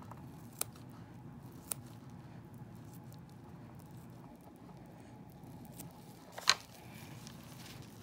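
Scissors snipping at raw chicken drumstick meat: a few sharp clicks, two in the first two seconds and a much louder snap about six and a half seconds in, over a low steady background hum.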